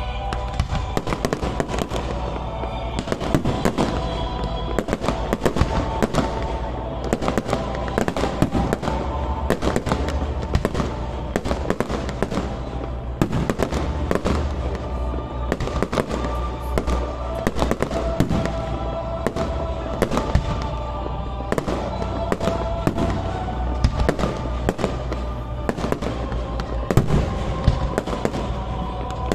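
Aerial firework shells bursting in quick succession, with a dense run of bangs and crackles that never lets up, over music playing along with the display.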